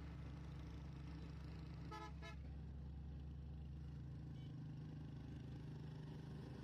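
Two short vehicle-horn toots, in quick succession about two seconds in, over a steady low rumble of a vehicle on the move.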